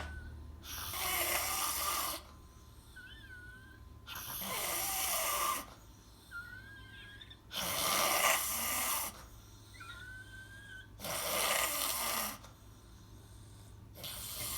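A person snoring in deep sleep: a rasping snore about every three and a half seconds, each about a second and a half long, with a faint wavering whistle in the quiet between snores.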